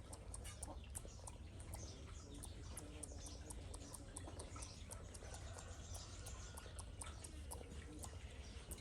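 Pet monkey grooming a cat's fur with its mouth: faint, rapid lip-smacking and nibbling clicks, over a steady low hum.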